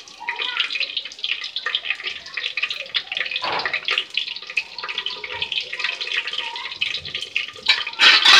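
Fried onions and whole spices sizzling and crackling in hot oil in a pressure cooker: a dense, steady crackle that gets louder near the end.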